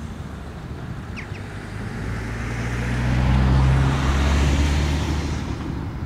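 A road vehicle passes by, its engine hum and tyre noise rising to a peak a little past the middle and then fading. A brief faint bird call sounds about a second in.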